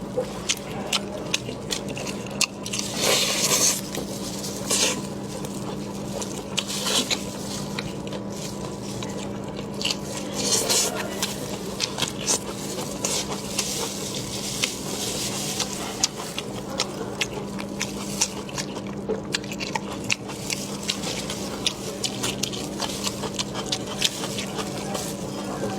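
Close-miked eating of a spiced sheep's head: chewing, lip smacks and sucking meat off the bone, with many sharp clicks and a couple of longer sucking slurps about three seconds in and again about ten seconds in.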